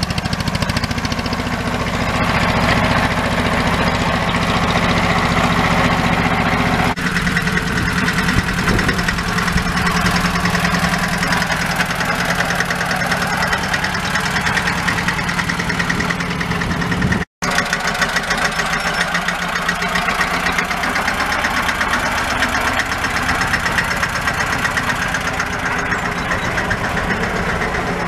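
Air-cooled single-cylinder diesel of a 1964 Deutz D15 tractor running steadily, its firing strokes coming as a fast, even knock. The sound cuts out for an instant a little past halfway.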